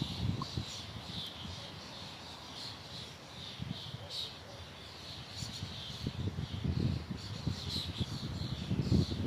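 Small birds chirping, many short high calls repeated throughout. Low gusts of wind rumble under them at the start and again from about six seconds in.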